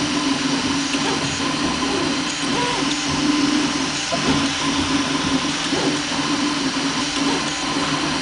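3D printer running mid-print: stepper motors whirring, their pitch wavering and shifting as the print head moves, over a steady hiss.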